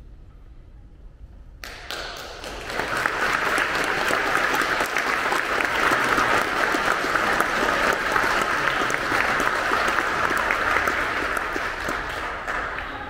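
A congregation clapping, the applause starting suddenly about a second and a half in, swelling quickly, holding steady, then dying away near the end.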